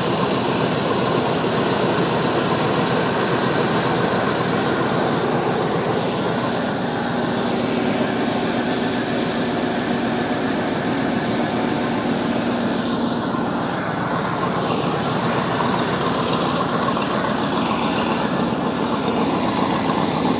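Old Chevy 2500 pickup's engine idling steadily.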